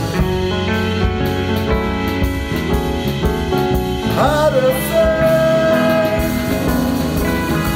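A band playing a song on bass guitar and keyboard, with a man singing; about four seconds in his voice slides and wavers, then settles into one long held note.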